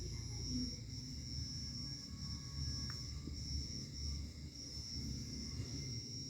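Insects trilling steadily in one continuous high note, over an uneven low rumble.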